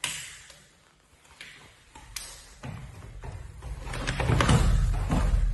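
Two grapplers scuffling on a foam mat: bodies shifting, skin and clothing rubbing, and dull thumps, louder in the last second or two. A short sharp slap comes at the very start, as the partners' hands clasp to begin the round.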